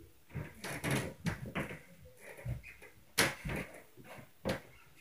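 Irregular thumps and knocks from the upstairs apartment, heard through the ceiling, about eight in five seconds, the sharpest and loudest a little after three seconds in. The uploader complains of this as neighbours stomping overhead.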